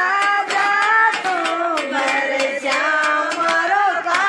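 Women singing a Rajasthani folk wedding song together, with steady hand-clapping about three times a second.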